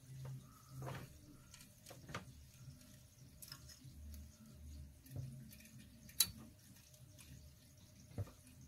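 Faint clicks and ticks of desoldering work on an ECU circuit board: a soldering iron tip and copper desoldering braid worked against the solder pads, with one sharper click about six seconds in. Low muffled thuds recur faintly in the background.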